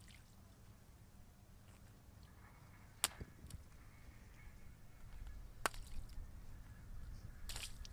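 Water balloons being handled and set down in a shallow puddle, with light splashing and two sharp snaps, about three and five and a half seconds in, then a short cluster of snaps near the end.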